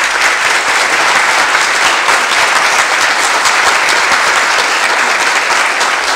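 Loud, steady applause from many hands clapping.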